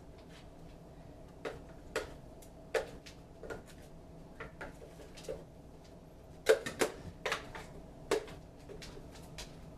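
Kitchenware being handled at a counter: scattered light clicks and knocks, with a quick cluster of sharper knocks about six and a half seconds in.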